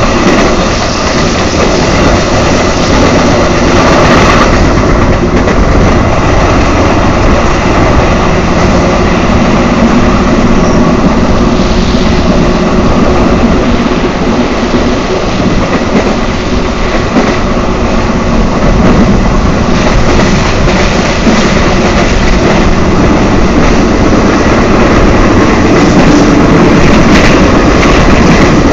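Passenger train running at speed, heard through an open window of its own carriage: a loud, steady rumble of wheels running on the rails.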